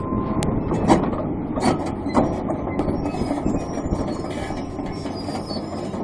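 Excavator-mounted hydraulic breaker hammering: a fast, steady clatter of blows over the running excavator, with a few louder knocks in the first two seconds.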